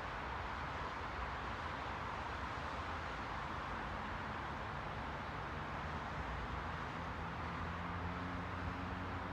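Continuous, even rushing noise used as white noise, with a low hum underneath that builds over the last few seconds.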